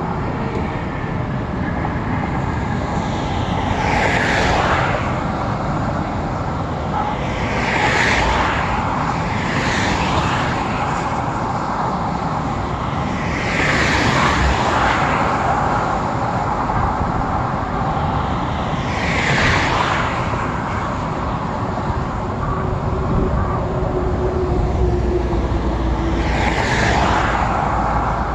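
Expressway traffic driving past close by: over a steady roar of traffic, about six cars and trucks go by one after another, each swelling up in a rush of tyre and wind noise and fading away.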